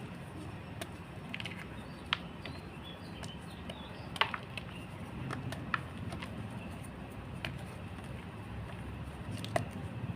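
Block of gym chalk being crushed: scattered sharp crunches, roughly one every second or two, the loudest a little past four seconds in and near the end, over a steady low hum.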